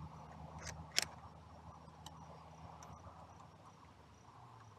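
A few light clicks and taps of small hand tools on the engine's oil filter cover bolts, the sharpest about a second in, over a faint low hum and a faint high chirping.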